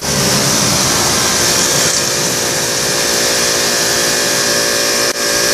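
Pressure washer running and spraying water: a loud, steady hiss of the jet over the steady hum of the washer's pump motor, with a brief dip about five seconds in.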